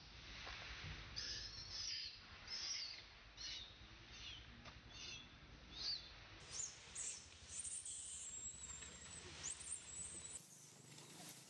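Infant long-tailed macaque screaming: a run of short, high-pitched, falling squeals, several a second, pitched higher after about six seconds. These are the distress cries of a baby pushed away by an adult female.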